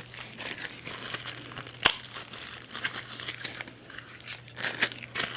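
Packaging crinkling and rustling as the phone's accessories are unwrapped by hand, with an irregular crackle and one sharp click about two seconds in.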